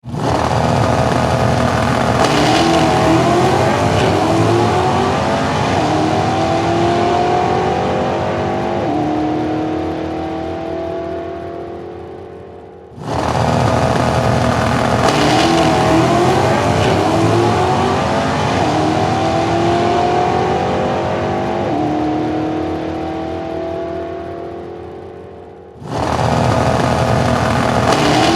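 Racing car engine launching hard and accelerating away, its pitch climbing in steps as it fades into the distance. The same effect repeats, cutting back in at full volume about 13 seconds and again about 26 seconds in.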